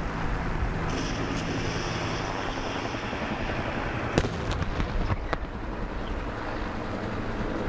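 Military vehicle engines running with a steady low rumble, then a sharp crack about four seconds in, followed by several fainter cracks over the next second: mock-battle gunfire.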